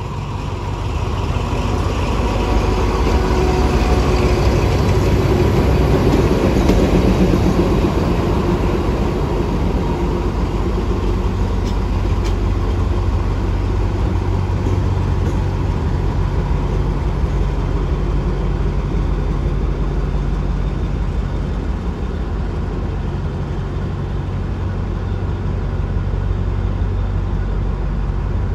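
Alsthom diesel-electric locomotive running light, its diesel engine drumming with a steady low drone. It grows louder over the first few seconds as it passes close, then holds steady as it moves away.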